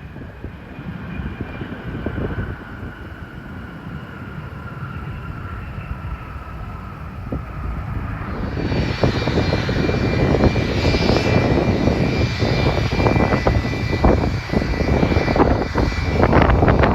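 An airplane's engines, a whine that falls slowly in pitch and then, about halfway through, turns into a brighter, steadier high whine that grows louder as the aircraft comes closer.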